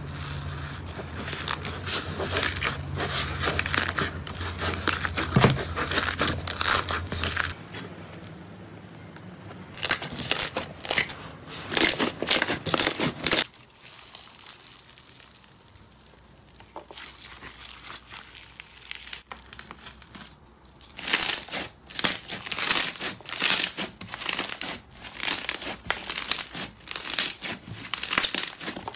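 Slime squeezed and pressed by hand, giving dense runs of crackles and pops in bursts; in the later part it is floam packed with foam beads, crackling as it is kneaded. A low hum sits under the first several seconds.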